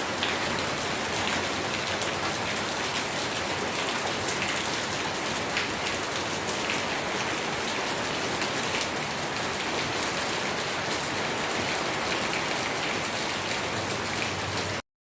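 Steady rain falling, with many small drops pattering on a surface; it cuts off suddenly near the end.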